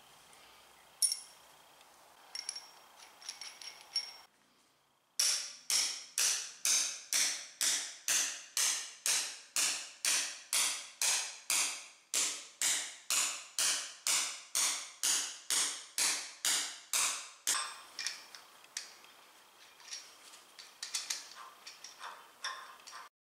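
A hammer driving a 7-inch steel wedge anchor into the concrete slab: a steady run of ringing metal-on-metal blows, about two a second, starting some five seconds in and lasting about twelve seconds. Light metal clinks come before and after the hammering.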